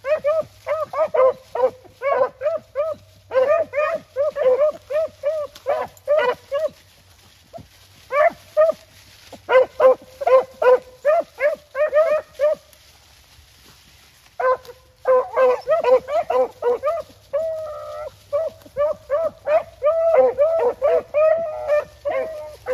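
A pack of hunting hounds baying in quick, repeated bays, several voices overlapping at times, with a pause of about two seconds just past the middle.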